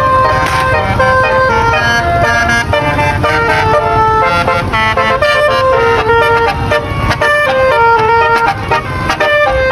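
Basuri telolet horn on a bus playing a quick tune of short, stepped horn notes, with a low engine rumble underneath.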